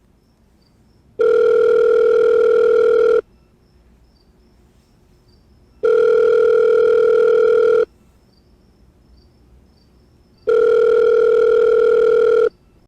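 Telephone ringback tone as heard by the caller while the line rings unanswered: three steady two-second tones, evenly spaced about four and a half seconds apart.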